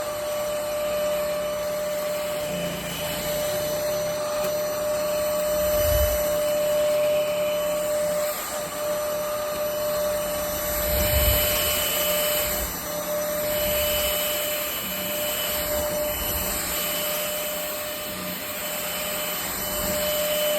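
VersLife S7 Plus cordless stick vacuum running steadily, a motor whine over airflow hiss, with a couple of brief low thumps about six and eleven seconds in.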